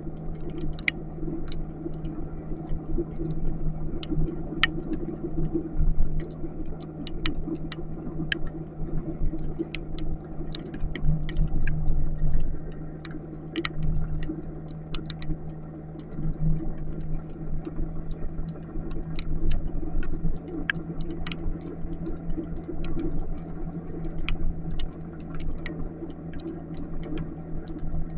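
Motorcycle engine running steadily under way in heavy rain, with scattered sharp ticks of raindrops striking the camera, about one or two a second.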